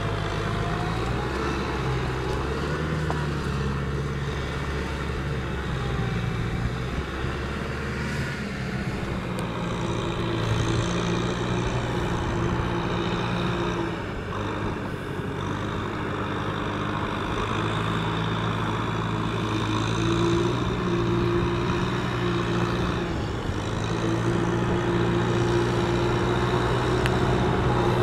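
Kubota M6040SU tractor's diesel engine running steadily while it pulls a trailer loaded with rice sacks through mud, its pitch shifting a few times as the throttle changes.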